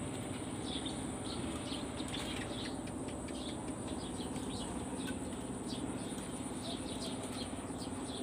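Scattered faint chirps of small birds, short and irregular, over a steady high insect drone.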